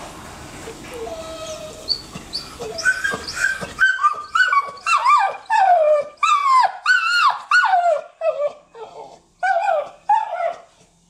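A pit-bull-type dog is whining and yelping in a rapid run of high, falling cries. The cries start faint and turn loud about four seconds in. It is her excited, frustrated reaction to the sight of another dog.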